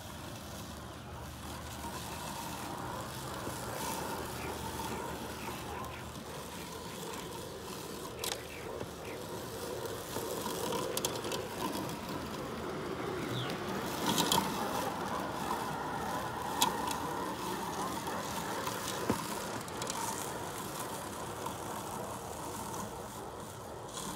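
Worx Landroid robot lawnmower running over grass: a steady electric motor whine, louder in the middle as it comes close, with a few sharp clicks.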